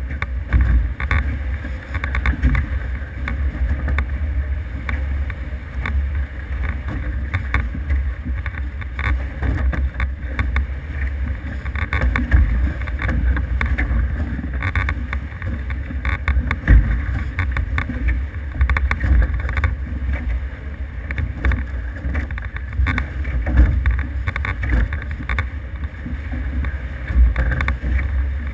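Wind rumbling on the microphone over rushing water, aboard an F18 sailing catamaran under way. The noise is steady throughout, with small irregular surges.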